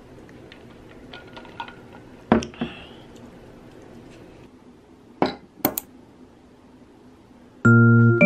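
Sandwich handled on a ceramic plate: a few sharp clicks and knocks, two close together about two seconds in and three more around five seconds in. Light piano music starts near the end.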